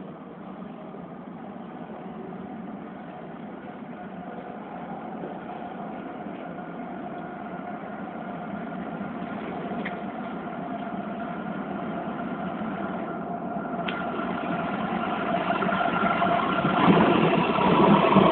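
Madrid Metro 3000-series narrow-gauge train approaching through the tunnel: a rumble with a motor whine that grows steadily louder as it nears the platform. The whine drops in pitch near the end.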